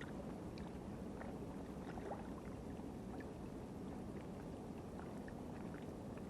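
Steady low wash of seawater at a rocky shoreline, with faint small clicks scattered through it.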